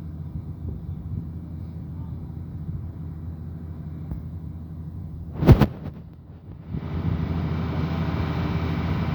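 Excavator diesel engine running steadily, with one heavy thump about five and a half seconds in. After a brief dip the engine runs louder and harsher for the rest.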